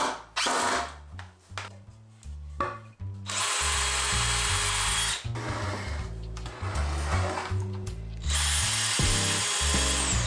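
Cordless drill/driver running in two bursts of about two seconds each, about three seconds in and again near the end, driving screws into the wooden frame. A few knocks of wood come before the first burst. Background music with a steady low beat plays throughout.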